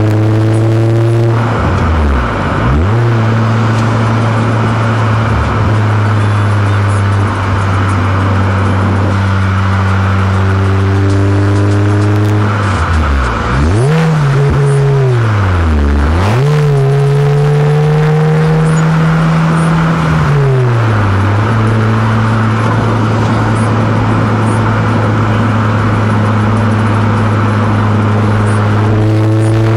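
Honda CR-Z Mugen RZ's four-cylinder engine and exhaust on the move: a steady drone at constant revs. The revs dip and climb back about two seconds in, twice in the middle, and again shortly after.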